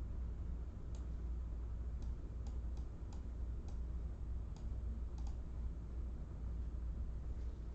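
Scattered sharp clicks, about nine at irregular spacing and bunched in the first five seconds, over a low steady hum.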